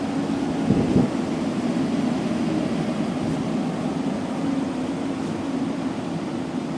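Steady low hum and rumble of an underground subway station platform, with one brief low thump just under a second in.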